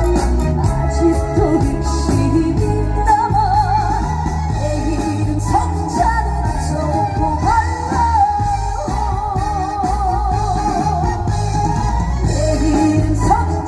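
Live performance of a Korean trot song over the PA: band backing with a steady beat under a lead melody line held with strong vibrato.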